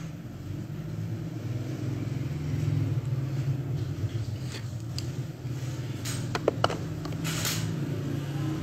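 Steady low rumbling hum, with a few sharp clicks between about five and seven seconds in and a brief hiss just after them.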